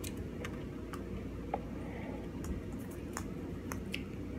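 Scattered light clicks and crinkles of a Kinder Surprise chocolate egg being unwrapped from its foil and handled.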